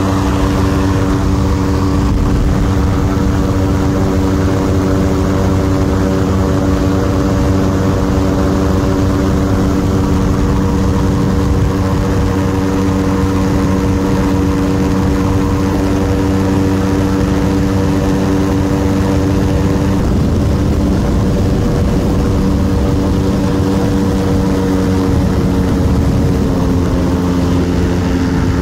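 Ultralight aircraft's engine and propeller running steadily at an even pitch, the pitch dropping slightly near the end.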